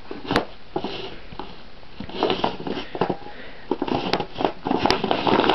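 Irregular crunching and scraping in packed snow as boots strapped onto tea trays shuffle and slide across it, the scuffs coming thicker and louder near the end.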